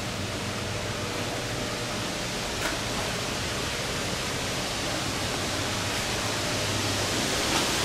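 Steady, even rushing noise with a faint low hum underneath and a light tick about two and a half seconds in.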